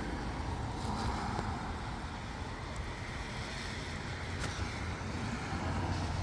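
Light wind blowing steadily outdoors, with a low rumble underneath and a few faint ticks.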